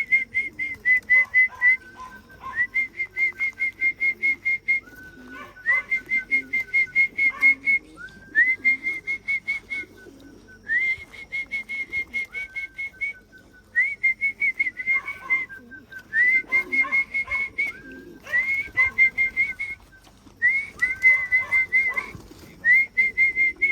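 Whistle call for bringing racing pigeons into the loft: about ten runs of quick, evenly repeated high pips, each run opening with a short upward slide and lasting a second or two. Pigeons coo faintly underneath.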